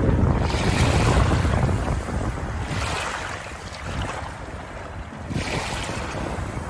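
Moving water rushing and washing, swelling in surges about every two and a half seconds, loudest near the start.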